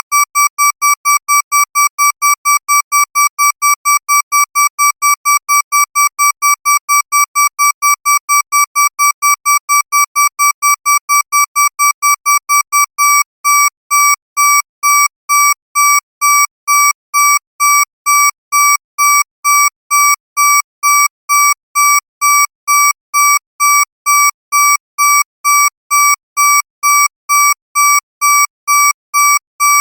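Electronic alarm beeping on one steady high tone, fast at about five beeps a second, then slowing to about two beeps a second some 13 seconds in.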